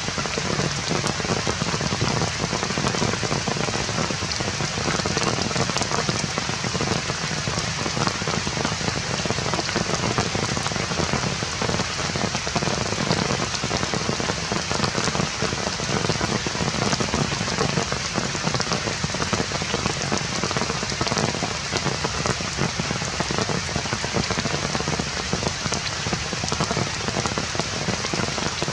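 Steady rain falling on surfaces: a dense, even hiss of drops, sprinkled with many small ticks.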